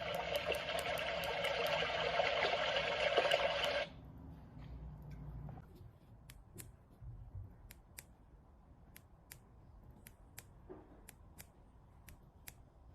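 A loud hiss that stops abruptly about four seconds in, followed by a run of sharp, light clicks, about two or three a second and somewhat uneven.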